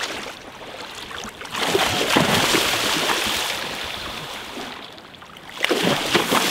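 Water splashing and surging in the shallows as a hooked shark thrashes at the water's edge, in two loud bursts: one about a second and a half in, and another near the end.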